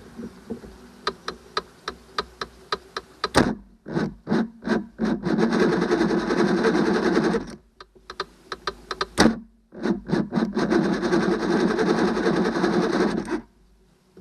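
Johnson 90 hp V4 two-stroke outboard being cranked over by its electric starter in two bursts, as for a compression test, turning over without starting. Each burst is led by a run of sharp clicks and a loud knock before the steady cranking noise.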